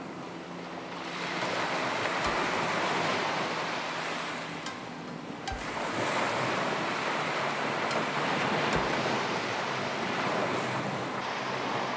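Ocean waves washing onto a sandy beach, the surf rising and falling in two long swells.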